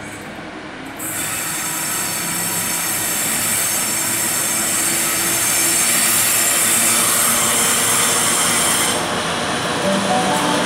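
GL class diesel-electric freight locomotives approaching with their engines running. From about a second in, steel wheels give a loud high-pitched squeal on the curved track, which eases near the end.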